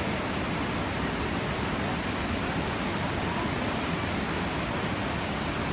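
Steady roar of a massive waterfall, white water plunging into the river below: a constant, even rushing that doesn't change.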